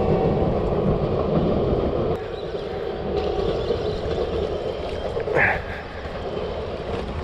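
Wind rumbling on the microphone, with a faint steady hum beneath it and a brief shout about five seconds in.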